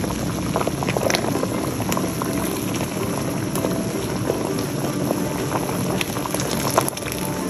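Dried apricots boiling in sugar syrup, a steady bubbling and popping: the stage where the fruit is boiled to soften it for apricot murabba.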